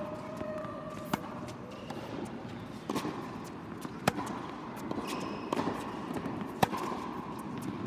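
Tennis rally: a tennis ball being struck by rackets and bouncing on a hard court, a series of sharp pops about one to one and a half seconds apart.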